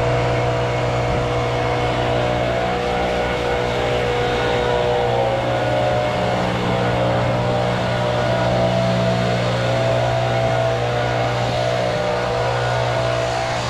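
Engine of a compact construction machine running steadily at a constant speed, its tone shifting slightly about five seconds in.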